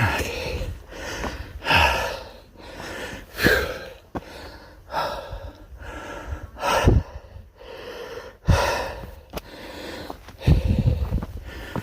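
A man panting hard, with heavy, gasping breaths about every one and a half to two seconds, out of breath from climbing a steep trail.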